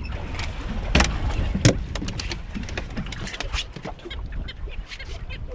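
Wind rumbling on the microphone, with scattered knocks and clicks from fishing gear being handled on a fibreglass boat deck; the two sharpest knocks come about a second in and again half a second later.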